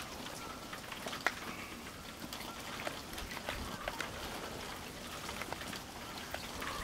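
Two cats mating on dry grass. There is a steady scatter of light crackles and ticks from the dry grass and leaves as the tom treads, with a few faint short cat cries.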